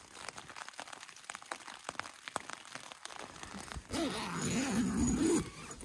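Nylon sleeping bag and tent fabric rustling and crinkling in small irregular crackles as someone shifts inside a tent. About four seconds in, a person's wavering voice sound lasts for about a second and a half and is the loudest thing.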